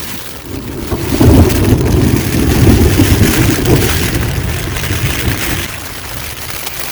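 Heavy rain and gusting wind pounding on an ultralight single-wall tent, heard from inside: a loud, deep rumbling rush that swells about a second in and eases off after a few seconds. To the person inside it sounds like a thunderstorm opening up right overhead.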